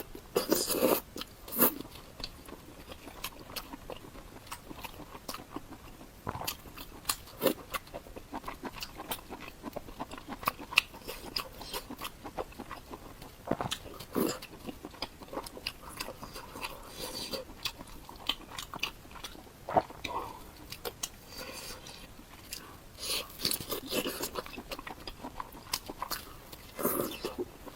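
A person biting and chewing food close to the microphone, with irregular crunchy bites and wet mouth smacks.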